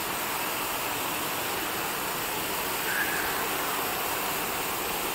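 Garden fountains spraying, water falling onto stone paving: a steady hiss of water.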